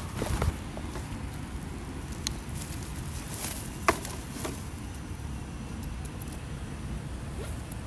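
Woven plastic sack being handled and opened, rustling, with a few sharp clicks, the loudest about four seconds in, over a steady low background rumble.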